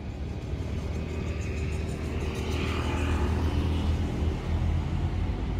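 Low, steady engine drone that grows a little louder partway through, as of a motor vehicle.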